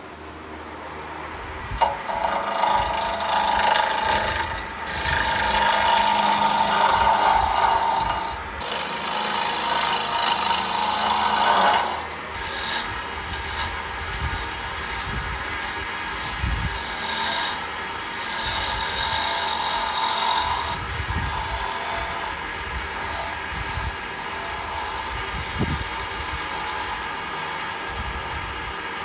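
Power tool cutting into a stabilized spalted maple pen blank: a steady rasping whirr that starts about two seconds in, is loudest for the next ten seconds, then carries on quieter.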